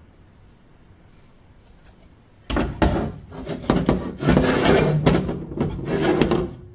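WWII German M40 steel helmet scraping and knocking on a concrete floor as it is gripped and turned by hand, a cluster of loud clatters starting a few seconds in. The steel shell gives a short ring near the end.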